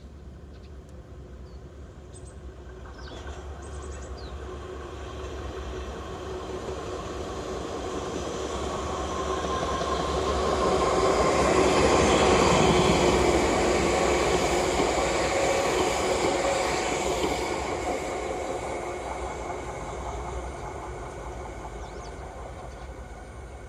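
A train passing by, slowly growing louder to a peak about halfway through and then fading away.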